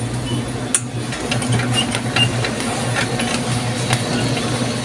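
Plastic shopping cart rolling along a store floor: a steady low rumble from its wheels, with the basket rattling and knocking in scattered clicks, a sharper knock just under a second in.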